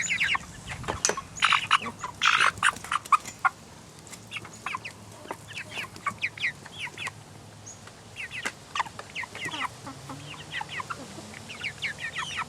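A small flock of chickens, young Cornish Cross meat birds among them, clucking and peeping in many short, quick calls. The calls are loudest and busiest in the first few seconds and again near the end, with a few sharp taps in between.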